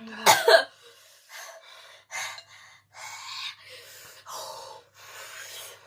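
A person gasping and breathing hard through the mouth against the burn of very hot chilli noodles, with a loud gasp about half a second in and then quick noisy breaths about once a second.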